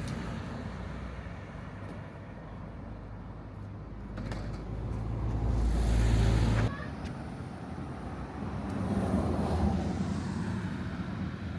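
Road vehicle noise: a low rumble that swells to its loudest about six seconds in, cuts off abruptly, then swells again more softly.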